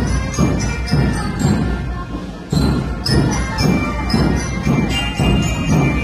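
Indonesian Air Force Academy cadet drum band playing on the march: drums beating about twice a second under bright, bell-like melody notes.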